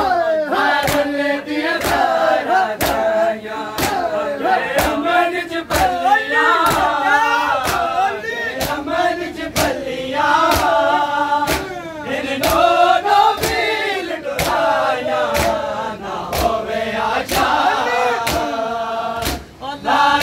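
A group of men chanting a mourning lament (noha) together, with sharp hand-on-chest strikes of matam keeping a steady beat of a little over one a second. The chanting dips briefly near the end.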